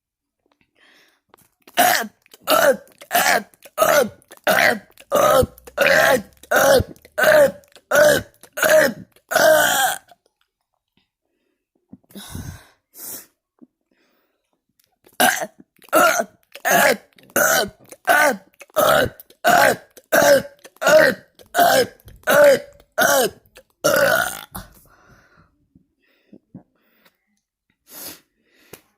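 A person burping loudly in quick succession: two rapid strings of a dozen or more short burps each, roughly three every two seconds, with a pause of about five seconds between the strings.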